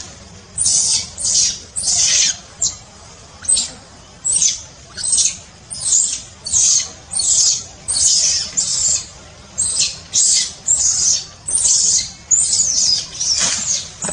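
Macaque, likely a young one, screaming: a long run of shrill, high-pitched cries, about two a second.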